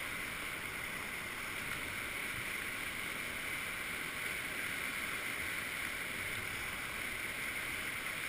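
Whitewater rapids rushing steadily, an even hiss of moving water heard from a kayak sitting in the current.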